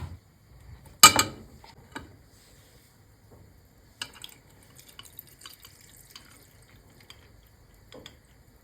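Drink-making sounds: a short loud splash or clatter about a second in, a sharp click a second later, then scattered small drips and light ticks.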